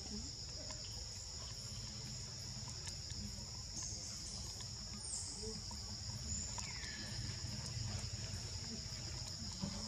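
Insect chorus: a steady high-pitched buzz, with a few brief falling calls up high.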